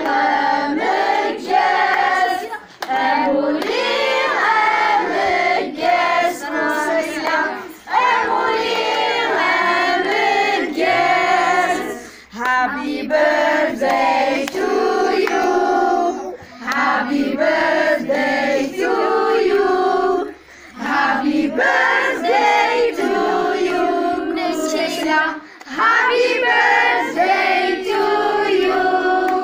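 A group of children and women singing a birthday song together in phrases, with brief pauses between lines.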